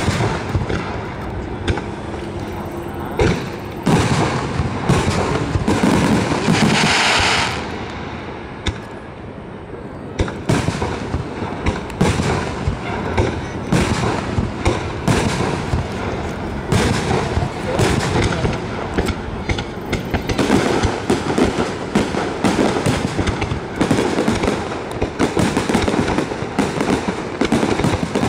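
Aerial firework shells launching and bursting in a long series of sharp bangs. There is a hissing stretch about six to seven seconds in and a short lull just after, then a rapid run of bursts.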